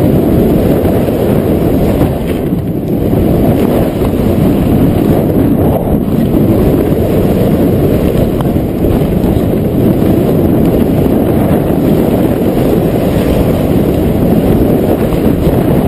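Wind buffeting the microphone of a GoPro camera flying on a kite: a loud, steady low rumble.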